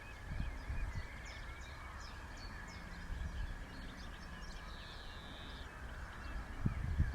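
Faint calls of several wild birds: short high chirps, and one buzzy call lasting about a second near the middle, over a low steady rumble.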